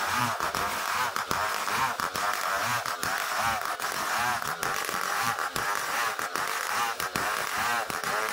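Engine-driven homemade saw rig running under load as it cuts ulin (Bornean ironwood), its pitch wavering up and down and its loudness dipping briefly again and again.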